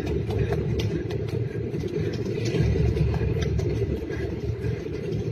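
A low, steady rumble under the quick footfalls of people running.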